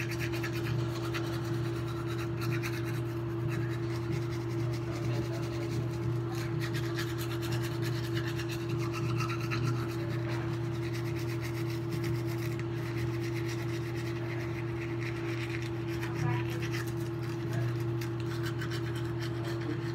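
Colgate electric toothbrush running with a steady motor hum while it scrubs the teeth, under a continuous scratchy brushing sound.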